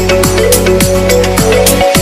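Background electronic music with a steady beat and sustained bass notes.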